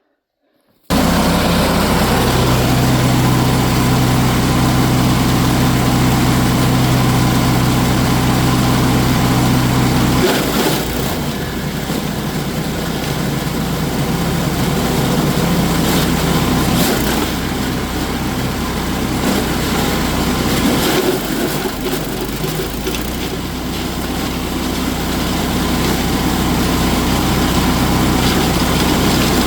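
Belt-driven wood chipper's small gas engine running loud and steady, starting about a second in. About ten seconds in the steady hum gives way to a rougher, more uneven sound.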